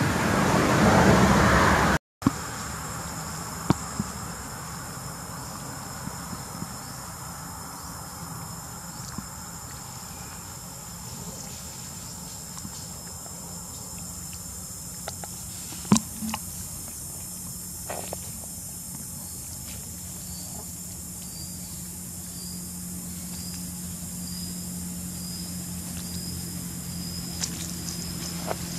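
Steady high drone of insects with a low hum underneath and a few sharp clicks. The first two seconds hold a louder rushing noise that cuts off suddenly.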